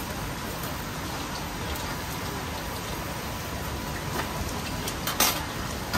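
Split lobster sizzling on a hot grill grate: a steady crackling hiss, with one sharp click about five seconds in.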